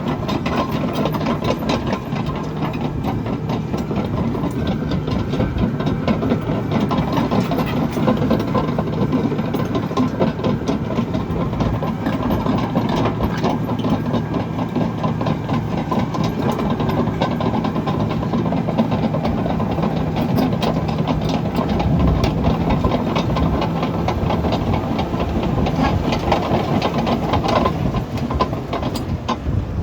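Caterpillar D6N LGP bulldozer's diesel engine running steadily under load while pushing dirt, rock and concrete, with constant clanking and clatter from the steel tracks and the broken concrete.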